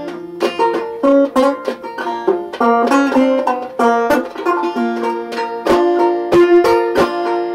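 Five-string banjo played in a quick run of plucked notes, its fifth string capoed at the third fret by a small clothespin capo that stays in place while he plays.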